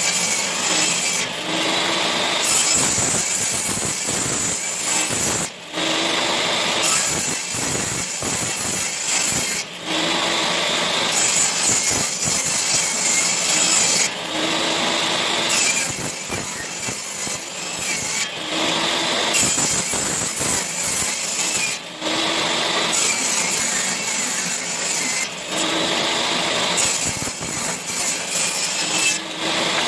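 Power saw cutting wooden boards, in repeated passes of a few seconds each with short breaks between cuts.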